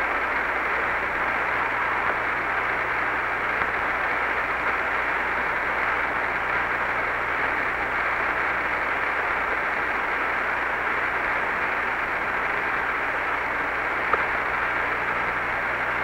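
Steady radio static hiss on an open, band-limited air-to-ground voice channel, with a low steady hum underneath. No one is speaking on the link.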